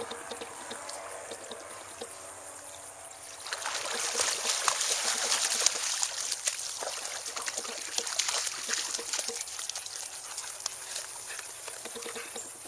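German Shepherd dogs moving through a shallow pond, the water lapping and sloshing around them; about three and a half seconds in it turns into louder, busy splashing as they run out through the shallows.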